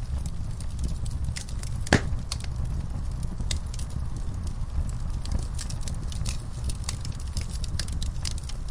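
Fireplace fire crackling: frequent sharp pops and snaps over a low, steady rumble of the flames, with one louder pop about two seconds in.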